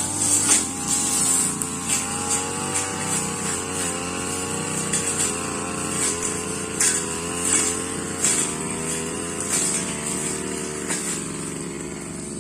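Brush cutter engine running steadily at high speed, with short noisy rasps every second or so as the blade cuts through grass and saplings.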